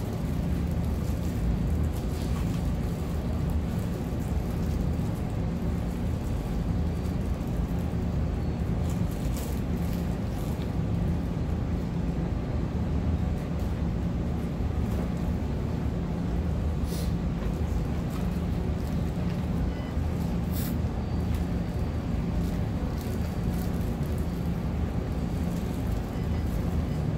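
Steady low hum of room noise, with a few faint sharp clicks about a third of the way in, two-thirds of the way in and just after.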